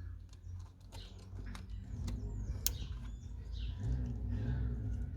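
Several sharp clicks of hands working plastic parts, the loudest about two and a half seconds in, over a low steady hum, with birds chirping in the background.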